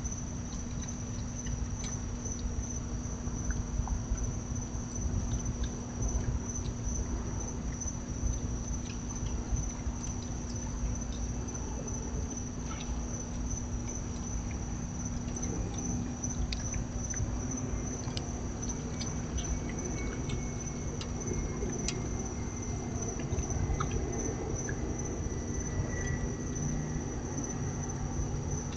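Crickets trilling steadily at a high pitch. Underneath is a steady low hum, with a few scattered faint clicks.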